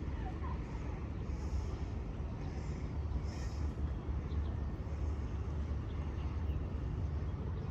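Outdoor city ambience: a steady low rumble, like traffic or wind on the microphone, with a few faint, brief higher sounds.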